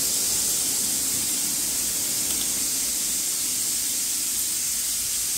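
A steady hiss, even in level and bright in the high range.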